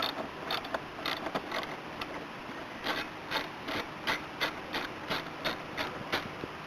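Ratchet wrench clicking in a series of sharp single clicks, about two or three a second, while 10 mm bolts are being unscrewed; the clicks stop shortly before the end.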